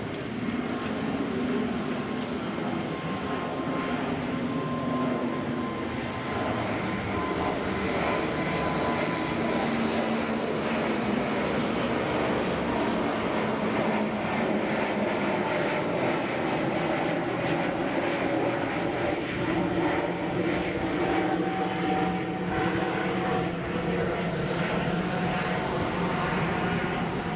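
Jet engines of a Vueling Airbus A320neo airliner running: a steady, dense rumble with a thin whine on top, holding level throughout.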